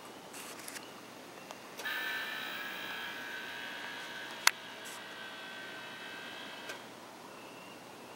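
A camera's zoom motor whining as the lens zooms in, starting about two seconds in and stopping near seven seconds, with one sharp click midway. A few soft clicks come just before it.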